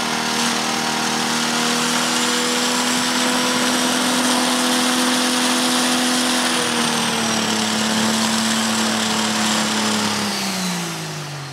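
A John Deere pro stock pulling tractor's diesel engine in a runaway, running flat out at a steady pitch with its injection pump stuck wide open and dumping fuel. Near the end the revs fall steeply and the engine winds down as the guillotine air shutoff on the turbocharger intake chokes it.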